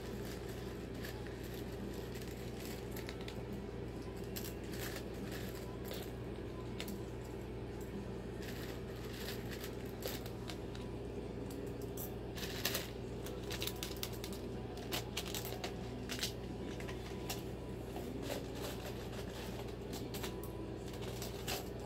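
Cockatoo rummaging with its beak in a paper cup of plastic chain links: irregular clicks and rattles of the plastic links knocking together, over a steady low hum.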